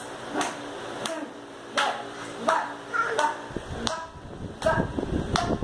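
A baby slapping its hands on a bed sheet in a steady rhythm, about one slap every 0.7 seconds, several slaps followed by a short high squeal from the baby.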